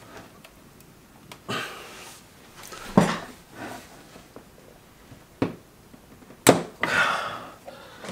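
A screwdriver clicking and knocking against the metal of a car cassette head unit as stuck bracket screws are worked at. A few separate sharp knocks, the loudest about three seconds in and again near the end, some followed by a short rasp.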